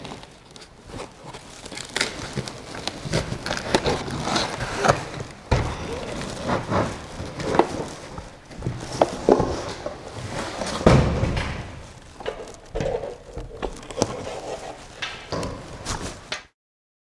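Unboxing handling noise: Creality CR-6 SE 3D printer parts and cardboard packing being lifted out of a shipping box, with irregular knocks, rustling and a heavier thump about eleven seconds in. The sound cuts off suddenly near the end.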